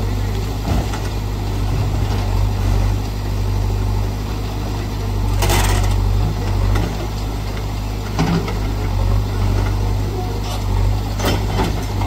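JCB backhoe loader's diesel engine running steadily while its backhoe arm breaks down a brick building, with crashes of falling bricks and rubble, the loudest about five and a half seconds in and smaller ones later.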